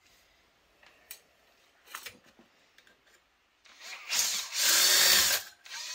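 Cordless drill squeezed on and run freely, spinning up with a rising whine, running about a second and a half and stopping, then started again more quietly near the end. A few faint clicks of metal tools come before it.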